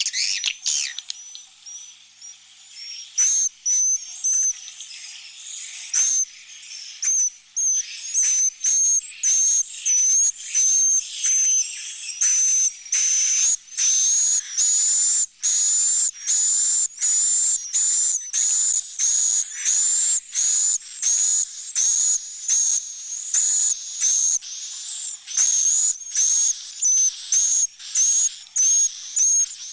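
Recorded swiftlet calls played as a swiftlet-house roosting lure: a dense flock of adult and young swiftlets twittering, a steady run of short, raspy high chirps about two a second, each with a thin whistled note.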